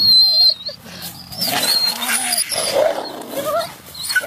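Wolves whining in high, wavering squeals during an excited face-licking greeting, the loudest squeal right at the start.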